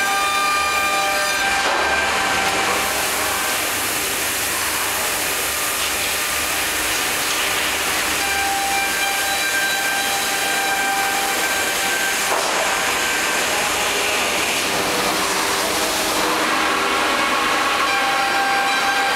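HOMAG CNC woodworking machining center running: a steady whine made up of several tones, with a hissing rush that comes in about two seconds in and eases off near the end.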